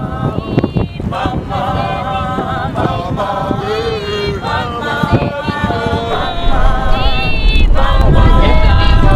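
Several voices singing together, unaccompanied, in held, wavering notes. From about six and a half seconds in, a loud low rumble rises underneath.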